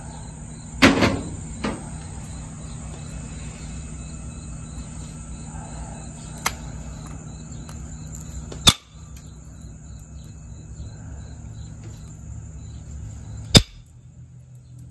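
Jasper being pressure-flaked with a copper-tipped flaker: a few sharp clicks as flakes snap off the stone's edge, the loudest about nine and fourteen seconds in.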